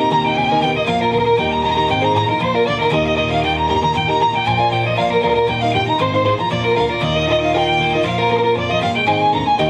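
Fiddle-led folk music playing a quick Scottish pipe tune, with a steady rhythmic accompaniment underneath.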